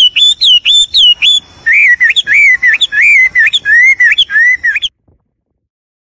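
Melodious laughingthrush (hwamei) singing loudly, a rapid run of clear whistled notes. Higher repeated phrases come first, then a little over a second and a half in a string of lower, swooping notes. The song cuts off abruptly near the end.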